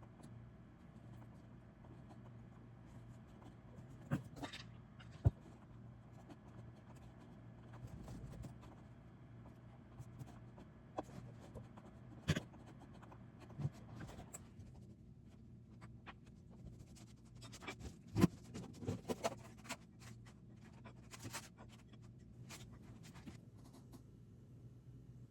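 Quiet handling sounds: scattered light taps, clicks and rustles of small objects over a steady low hum, busiest about three quarters of the way through.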